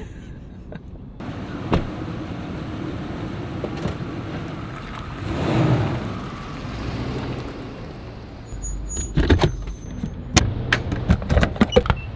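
Car and road noise, swelling and fading about halfway through, then a quick run of sharp clicks and knocks in the last few seconds.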